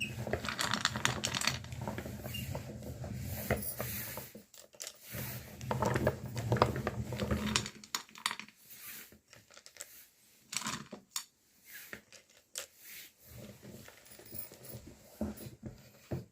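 Meat grinder running on chocolate, with a steady sound that drops out briefly at about four and a half seconds and stops at about eight seconds. Scattered clinks and knocks follow.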